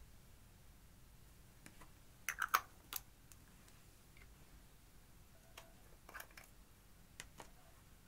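Scattered light clicks and taps from handling makeup pieces and a plastic eyeshadow pan over a glass dish. The sharpest clicks come in a quick cluster about two and a half seconds in, and a few softer ones follow near the end.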